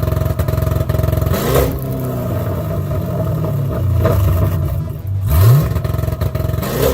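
LS-swapped V8 engine running loud and revving up twice, its pitch sweeping quickly upward just before the start and again about five seconds in.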